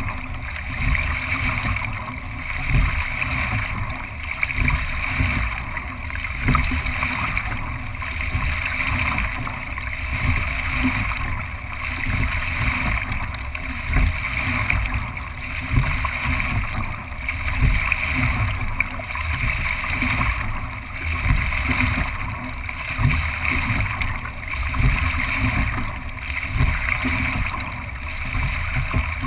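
Water rushing along the hull of a racing single scull and off its oars, surging and easing in a steady rhythm of about one stroke every 1.7 seconds, with low wind rumble on the microphone.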